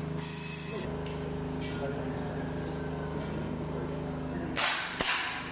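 Two sharp cracks of 10-metre break-barrel air rifles firing near the end, about half a second apart, over a steady low hum.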